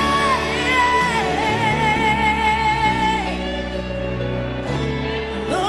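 Gospel worship song: a singer holds long, wavering notes over band accompaniment, with a sliding note near the end.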